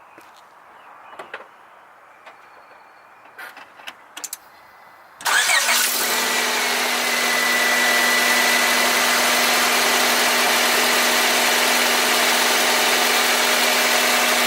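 A few faint clicks, then about five seconds in a Honda Accord engine cranks, catches and settles into a steady idle through a freshly installed aftermarket header and downpipe. The exhaust sounds quiet, with no leak.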